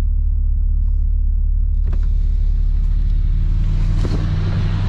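Jeep engine running steadily at low revs while the vehicle pushes through broken ice and water in a frozen mud pit. A sharp knock comes about two seconds in, and a hiss of water and ice grows from then on, loudest near the end.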